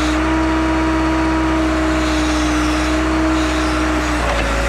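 Backhoe engine running steadily with a held tone, its pitch stepping down near the end.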